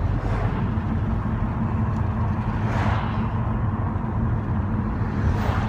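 Road noise inside a moving car's cabin: a steady low rumble of engine and tyres, briefly louder about three seconds in.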